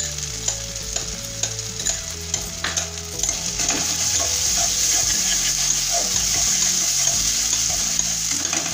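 Ground coconut paste and spice pastes sizzling in hot oil in a metal kadai while a metal spatula stirs and scrapes them, with scattered sharp clicks of metal on metal. This is the masala being sautéed; the sizzle grows louder about three seconds in.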